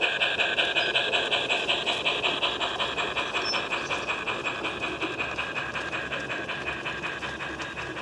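Simulated steam-locomotive chuffing from a Dallee 2k2 sound card in a battery-powered LGB Stainz garden-railway locomotive. It is a fast, even chuff that fades gradually as the locomotive moves away.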